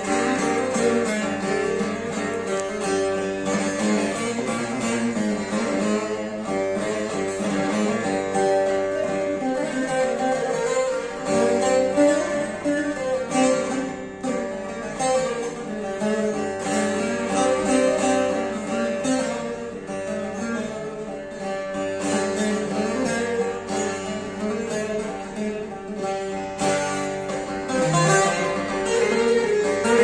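A bağlama (Turkish long-necked saz) played solo: an instrumental melody of plucked notes.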